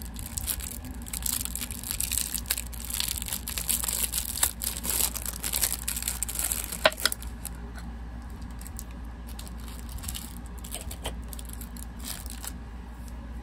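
Packaging crinkling and rustling as it is unwrapped by hand. It is busiest through the first half, with one sharp click about seven seconds in, then quieter handling with scattered small ticks.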